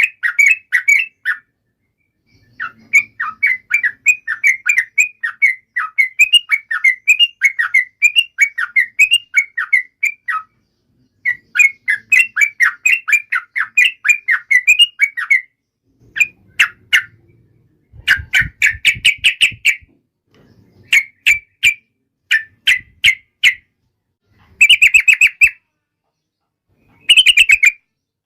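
Yellow-vented bulbul singing in long, rapid chattering runs of notes, the continuous 'ropel' song, breaking into shorter, louder bursts in the second half.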